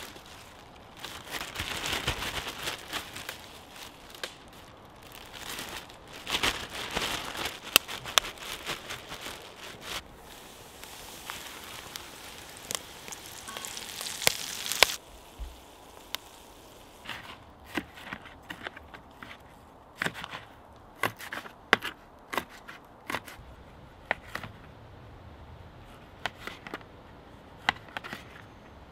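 A clear plastic bag crinkling as it is handled, a dense run of crackles that stops abruptly about halfway. Then a knife cutting cherry tomatoes and spring onions on a plate, in separate sharp taps.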